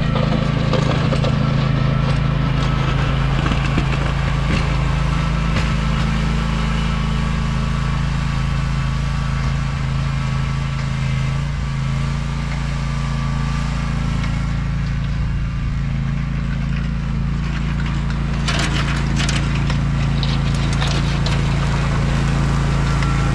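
John Deere Z530R zero-turn mower's engine running steadily under load. About two-thirds of the way in there is a short stretch of sharp crackling clatter.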